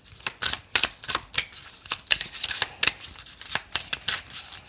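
A deck of oracle cards being shuffled by hand: a quick, uneven run of card flicks and slaps, several a second.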